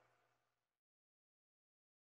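Near silence: the faint tail of a fading music track dies away within the first second, then dead digital silence.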